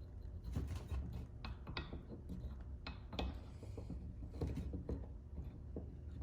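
Scattered light clicks and knocks of metal U-joint and CV joint parts being turned by hand and worked into line with the centering socket. About a dozen uneven taps, none much louder than the rest.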